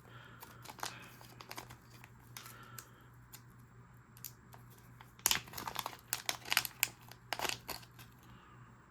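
Packaging crinkling and tearing as it is handled and opened: scattered small crackles, then a burst of louder crinkles from about five to eight seconds in.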